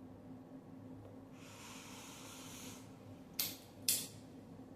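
A man drawing a breath in through his nose for about a second and a half, then two short clicks about half a second apart.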